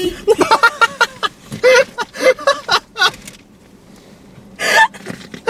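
People laughing: a run of quick laughing bursts that dies down about three seconds in, then one more short outburst near the end.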